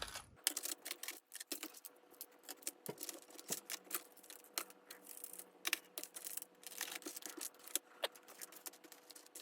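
Fishing tackle being sorted by hand in a tackle box: quick, irregular light clicks and small rattles of lures and hardware being picked through.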